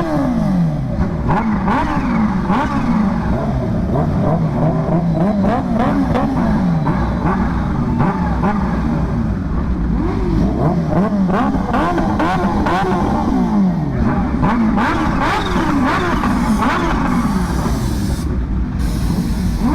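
Kawasaki H2's supercharged inline-four engine revved hard again and again, its pitch climbing and dropping about once every second or so, loud throughout.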